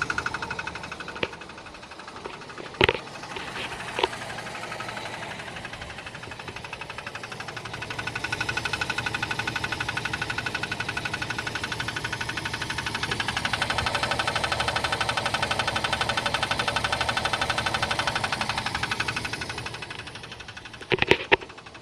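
Jeep Cherokee's 4.0-litre AMC 242 straight-six engine running with a fast, even ticking knock. It gets louder through the middle and drops back near the end, with a few sharp clacks. The knock comes from a circular crack in the flexplate (drive plate).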